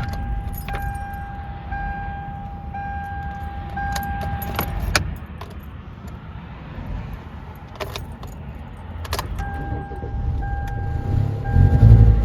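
A parked car's dashboard warning chime dings about once a second, stops about five seconds in and starts again near the end. A few sharp clicks from the key and ignition sound between the dings, over a steady low rumble of highway traffic, and a louder low rumble builds at the very end.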